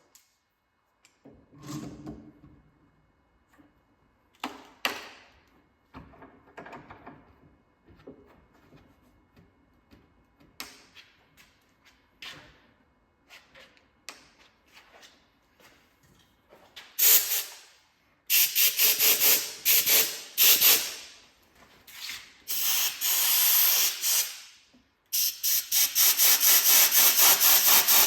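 Scattered light knocks, then loud back-and-forth rubbing strokes on a hard surface starting about halfway through, settling into a fast steady rhythm of several strokes a second near the end.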